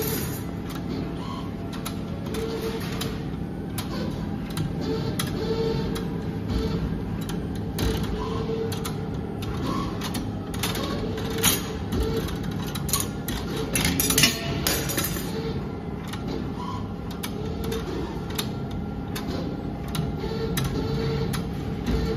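CNC wire bending machine at work. Its motors whir in short repeated bursts as the wire feeds and the bending head turns, with clicks and knocks from the clamps and wire, and a few louder knocks about halfway through. All of this sits over a steady low machine hum.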